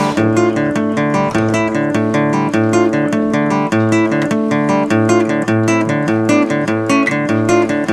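Acoustic guitar music with a steady rhythm of plucked notes.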